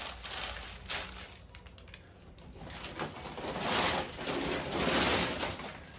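Plastic packaging rustling and crinkling as a bag of Ariel washing powder is handled on the table, with small crackles at first and a louder stretch of about two seconds past the middle.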